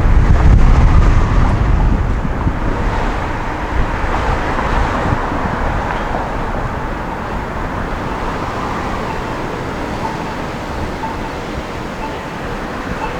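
Road and traffic noise picked up by a microphone on the roof of a moving van. A low rumble is loudest in the first couple of seconds, then settles into a steady, even hiss.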